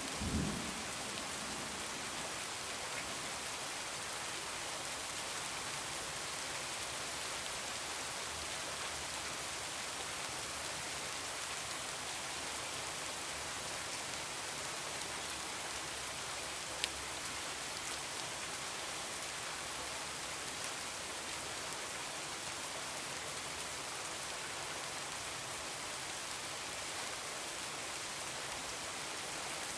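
Heavy rain falling steadily as an even hiss, with the tail of a thunder rumble dying away right at the start. A single sharp click sounds about 17 seconds in.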